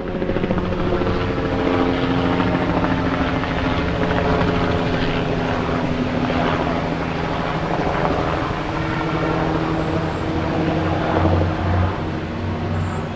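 Steady drone of a large engine running, a few held tones over a rumble, swelling briefly near the end.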